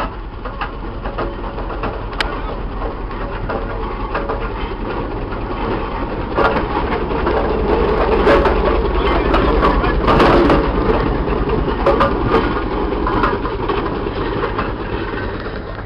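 Steam roller and steam traction engines running past at walking pace, a steady mechanical chuffing with many clanks and knocks. It grows louder as the roller passes close, about halfway through, then eases off.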